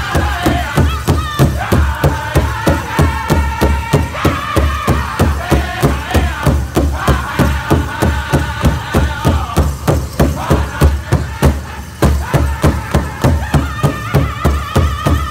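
Powwow drum group playing a men's fancy dance song: several drummers strike one large shared bass drum in a fast, even beat of about three strokes a second, with high-pitched group singing over it. The beat drops away briefly about twelve seconds in, then picks back up.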